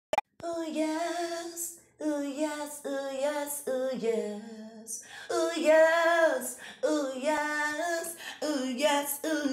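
A woman singing a melody in phrases of held, sliding notes, with a short click at the very start.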